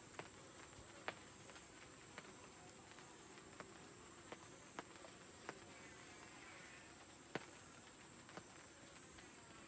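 Quiet, steady drone of insects: a constant high chorus with a faint low buzzing of honeybees from the nearby hive. About ten scattered sharp clicks break in, the loudest about a second in and about seven seconds in.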